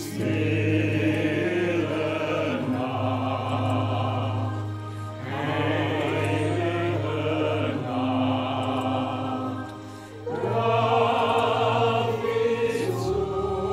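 Combined mixed choir singing a Christmas carol in three long phrases of held notes with vibrato, over instrumental accompaniment with a steady low bass note. The choir comes in right at the start, after an instrumental passage.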